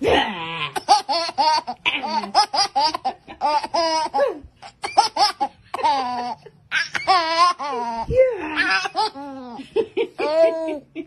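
A baby laughing hard in a long run of short, high-pitched bursts, pausing briefly twice.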